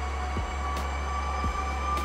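CNC lathe spindle running a turning cycle: a steady whine that creeps up in pitch as the spindle speeds up under constant surface speed while the tool moves in toward the centre. A faint tick comes about once a second.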